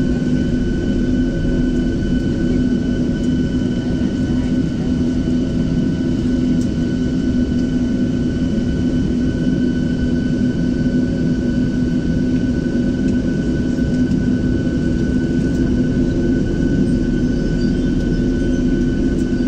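Cabin noise inside a Boeing 737-700 taxiing on the ground: its CFM56-7B jet engines running at idle, a steady hum with a few high, even whining tones.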